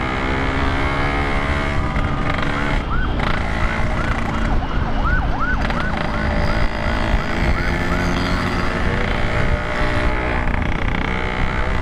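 Ambulance siren in a fast rising-and-falling yelp, about two sweeps a second, fading out about eight and a half seconds in, over a steadily running motorcycle engine.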